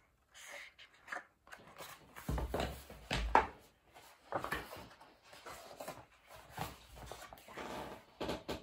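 Handling noise as a picture book's pages are turned: paper rustling and brushing, with a dull bump about three seconds in.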